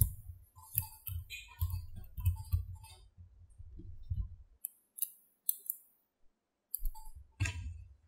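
Small magnetic balls clicking as fingers snap them onto a block of magnetic balls: scattered sharp clicks over the low rub of hands handling the block. The rubbing stops for about two seconds just past the middle, when only a couple of clicks are heard.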